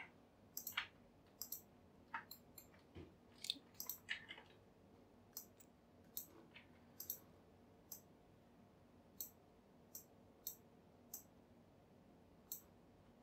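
Scattered clicks of a computer mouse and keyboard keys, short and sharp, coming irregularly, sometimes in quick pairs, over faint room tone.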